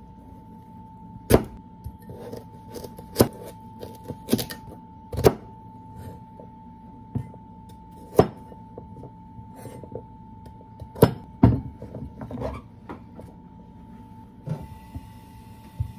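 Chef's knife cutting carrot into small pieces on a plastic cutting board: sharp knocks of the blade striking the board, uneven and a second or more apart, over a faint steady hum.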